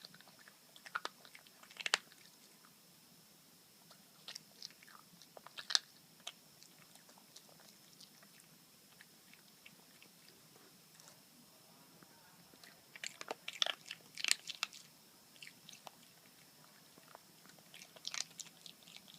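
A puppy chewing and biting, with scattered crunches and clicks in a few short bursts and quieter gaps between.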